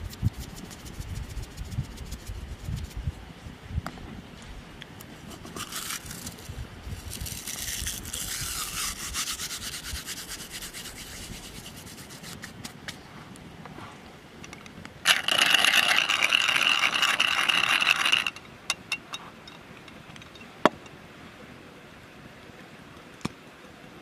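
Raw ground beef being seasoned by hand: soft pats of the meat, then salt and herbs sprinkled on with a light hiss. Then a pepper mill grinds for about three seconds, a dense rasping and the loudest sound, followed by a couple of sharp clicks.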